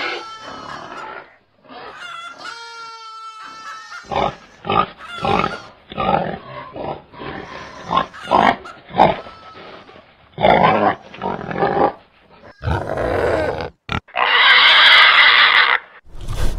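Domestic pigs grunting in a run of short grunts, with a long, harsh squeal near the end.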